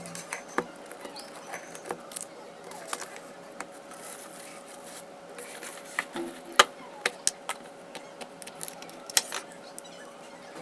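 Slime being squeezed and pressed by hand, giving irregular sticky clicks and pops, the loudest about six and a half and nine seconds in, over a faint steady hum.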